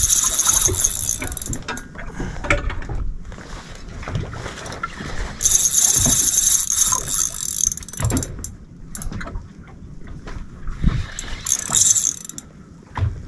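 Fishing reel buzzing in bursts under the load of a big snapper on the line: a long run at the start, another around the middle and a short one near the end, with low knocks from handling the rod in between.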